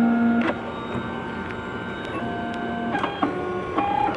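Ultimaker V1 3D printer's stepper motors whining as the print head traces the first layer. The steady tones jump to a new pitch every second or so as the head changes speed and direction, with a short click at several of the changes.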